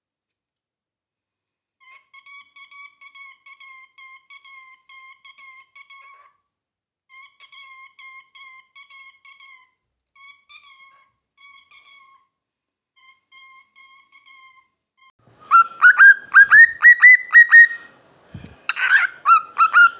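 Cockatiel chattering softly in a steady warbling tone for several seconds, then breaking into a fast run of loud, rising chirps and calls near the end.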